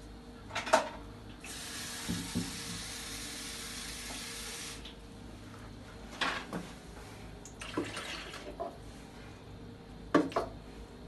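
Water being poured or run in a steady stream for about three seconds, starting a little over a second in. Scattered knocks and clunks come before and after it, over a faint steady hum.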